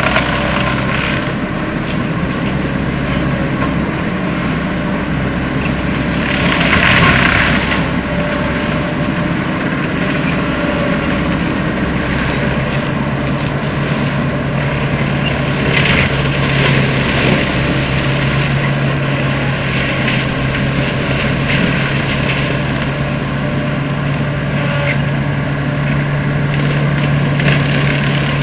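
ASV RC100 tracked skid steer's diesel engine running with a Seppi MiniForst hydraulic mulcher head driven off it. The sound is a steady machine noise, with a louder, harsher stretch about seven seconds in, and a steady low hum that comes up about halfway through.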